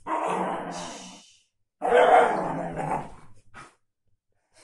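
Fox terrier rubbing and rolling itself on a bedspread after a bath: two bursts of rustling, the second louder, before the dog settles.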